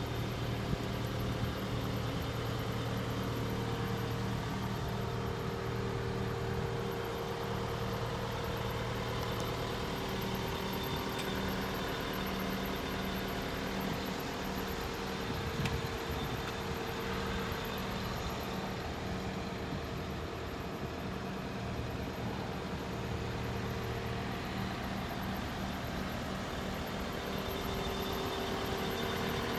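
Cat 906M compact wheel loader's diesel engine idling steadily.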